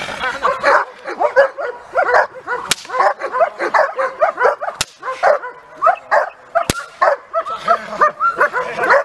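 Young harlequin Beauceron barking and yelping in rapid, excited bursts, two or three a second, worked up by a decoy in bite-work training. Three sharp cracks sound about two seconds apart in the middle.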